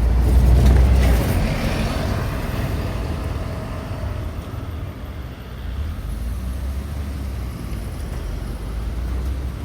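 Road traffic: a motor vehicle passes close by in the first second, loudest then, and after it engines keep up a steady low rumble.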